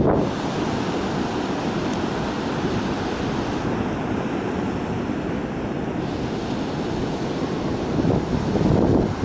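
Waves breaking and washing up on a sandy beach, a steady rush of surf, with wind blowing on the microphone.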